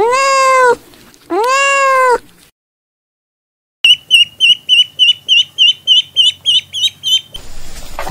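A cat meowing twice, two long drawn-out meows. After a short silence, ducklings peep rapidly, about four or five high peeps a second. Near the end a cow begins to moo.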